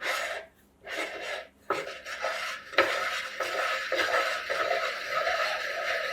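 Meat grinder grinding up an ice cream cone: a rough, scraping grinding noise, first in three short bursts, then continuous from about three seconds in.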